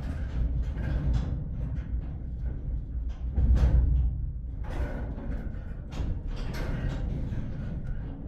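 Music with deep drum-like hits, loudest about three and a half seconds in.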